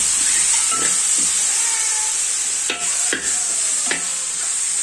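Beef frying in hot oil and masala in a cooking pot: a steady sizzle, with a few sharp clicks of a spoon stirring about three and four seconds in.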